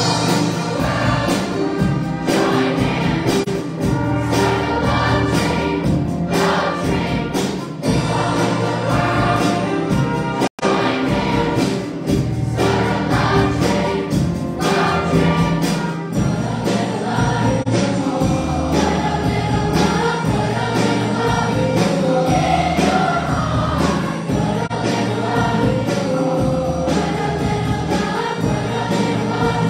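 A large mass choir of middle-school voices singing with a student string orchestra accompanying. The sound cuts out for an instant about ten and a half seconds in.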